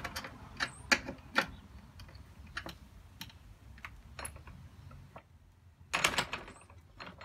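Scattered light metallic clicks and ticks of locking pliers turning a steel turnbuckle on a gate's anti-sag cable, tightening the cable to lift the sagging gate. A louder cluster of knocks comes about six seconds in.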